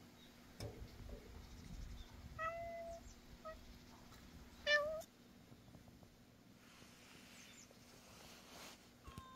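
Orange tabby cat meowing: a meow about two and a half seconds in, a brief one after it, and a louder meow that rises at its end about halfway through. Another meow starts near the end.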